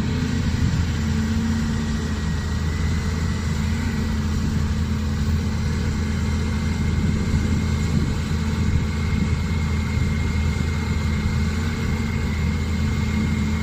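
Volvo crawler excavator's diesel engine running steadily as the machine works, with a thin steady whine above the low engine hum.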